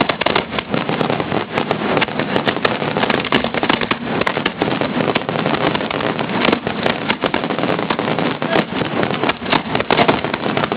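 Fireworks going off in quick succession: many sharp pops and crackles over a dense, continuous noise.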